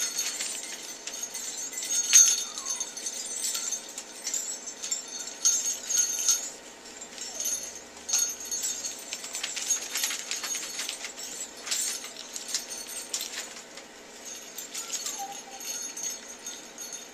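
Sleigh bells jingling unevenly as toy poodle puppies knock them about, with sharper jangles every second or two.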